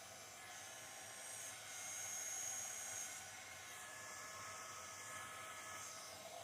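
A small hand-held electric blower running steadily: a hissing rush of air with a faint high whistle, swelling a little louder about two seconds in.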